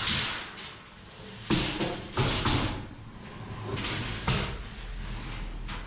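A long length of metal stock scraping and sliding as it is pulled out, with several sharp clanks among the scraping, the loudest about a second and a half in and again near four seconds in.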